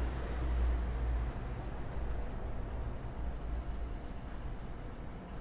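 Quiet background room tone: a low hum that drops a little over a second in, under a faint high-pitched flickering hiss.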